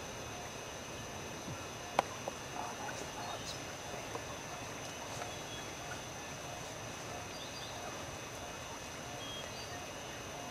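Dark-backed wood quails giving soft, short clucking notes over a steady high-pitched insect drone, with one sharp click about two seconds in.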